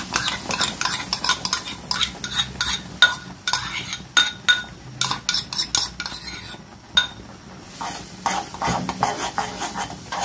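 A utensil stirring thick mango purée in a pan over low heat, scraping across the pan bottom in a quick, irregular run of strokes. There is a short pause about two thirds of the way in.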